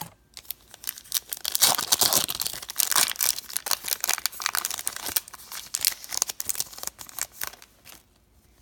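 A trading card pack wrapper being torn open and crinkled by hand, a dense crackling rustle with sharp snaps that fades out near the end.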